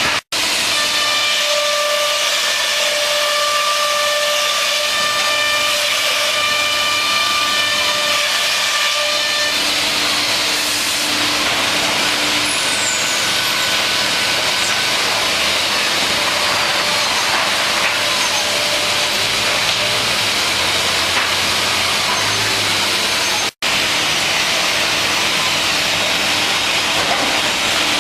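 C.R. Onsrud CNC router machining center running: a loud, steady hiss with several whining spindle tones over it that shift about ten seconds in. The sound cuts out for an instant twice.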